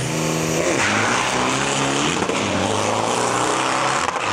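Turbo-diesel Isuzu D-Max drag trucks' engines running hard. The pitch holds steady and then steps to new levels, and a loud rushing noise builds from about a second in.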